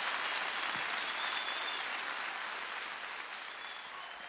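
Audience applauding, the clapping slowly fading away, with a couple of thin high whistles in it.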